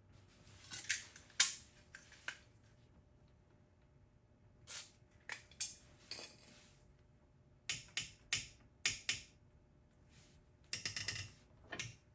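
Irregular short runs of ratchet clicks and metal clinks from a hand tap wrench being turned forward and backed off, cutting new threads for the broken brake disc bolts.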